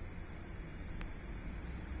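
Steady, high-pitched insect chorus, with a low rumble underneath and a single sharp click about a second in.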